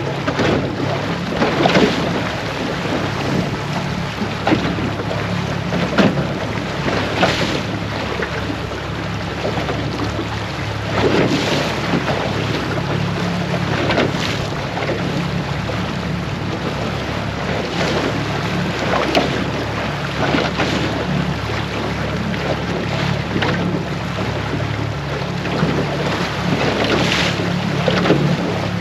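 Wind buffeting the microphone over small waves lapping against a small boat's hull, with irregular brief splashy surges every few seconds.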